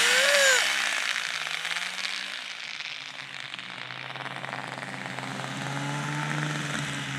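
Old Safari snowmobile's two-stroke engine running as it rides away across the snow. Its sound fades over the first few seconds, then holds at a steady pitch further off.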